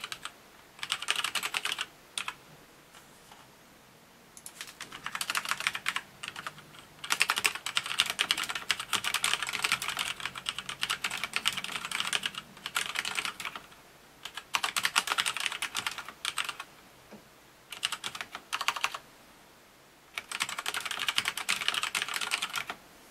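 Typing on a Scorpius M10TFL mechanical keyboard with red linear switches: rapid clatter of keystrokes in bursts lasting from one to several seconds, separated by short pauses.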